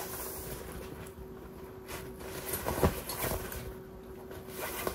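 Empty Michael Kors leather tote being handled: its fabric lining rustles as hands spread and shift it open. There is one sharper knock a little before three seconds in, and a faint steady hum underneath.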